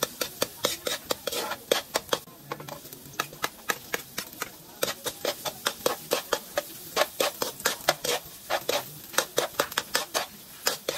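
Metal ladle scraping and clinking against a stainless steel wok as garlic and onions are stir-fried: rapid, irregular clinks, several a second, over a faint sizzle of frying.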